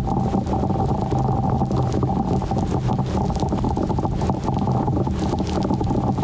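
Thunderstorm wind buffeting the microphone: a steady, loud rumbling noise with many small crackles throughout.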